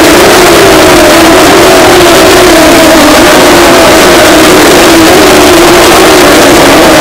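Super 6000 GR Supra stock cars' V8 engines running on track, one engine note falling slowly in pitch, with a loud even hiss across it.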